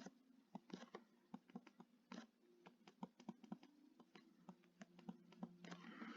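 Near silence with faint, irregular light taps and clicks of someone writing or drawing.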